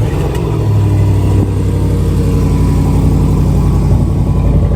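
The 5.0-litre supercharged V8 of a 2014 Range Rover Sport running just after a start. It runs a little higher for about the first second, then settles into a steady idle.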